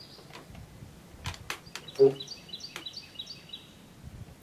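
A songbird singing a quick run of short, high chirps, with a few sharp clicks shortly before it and one brief low voice sound at about two seconds.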